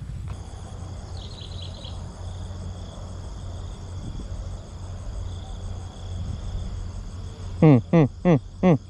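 Steady chirring of insects over a low, steady rumble, with a brief trill about a second in. Near the end come four short, loud whines in quick succession, each falling in pitch.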